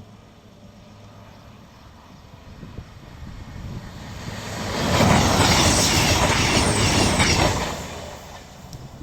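High-speed passenger train passing close by at speed. Its noise builds over a few seconds, holds loud for about two and a half seconds with a rapid clatter of wheels over the rails, then fades away.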